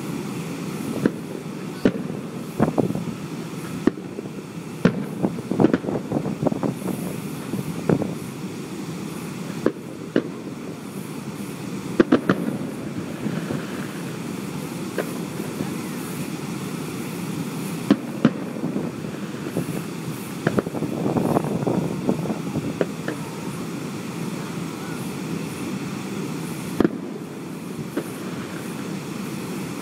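Fireworks bursting in irregular sharp bangs, some in quick clusters, over a steady low rumble.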